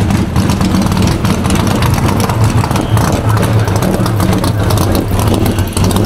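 A vintage V8 race car running at low revs as it rolls slowly past close by: a loud, deep, steady engine note with a rough, crackly edge.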